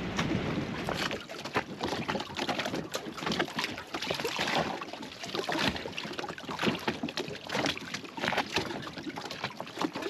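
Water splashing and slapping irregularly against the hull of a small inflatable dinghy moving through choppy water, in a quick uneven run of sharp splashes.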